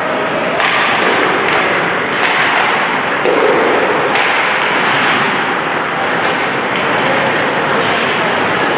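Ice hockey game play in a rink: a steady wash of noise with a few sharp knocks from sticks, puck and boards.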